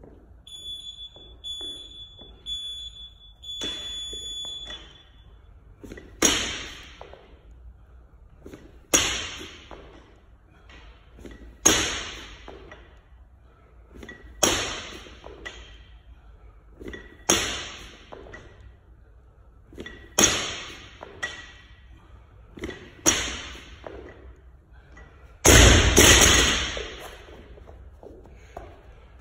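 A gym interval timer beeps a countdown: several short high beeps, then a longer one about four seconds in. After that a barbell loaded with rubber bumper plates lands on the floor eight times, about every three seconds, once per ground-to-overhead rep. Each landing is a sharp clang with a ringing tail, and the last is the loudest, with a deep thud.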